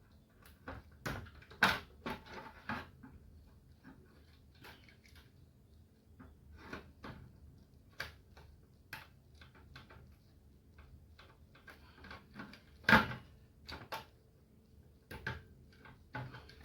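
Scattered small clicks and knocks of parts being handled while a laser printer's small drive motor is being taken apart, with a sharper knock about 13 seconds in. The motor itself is not running.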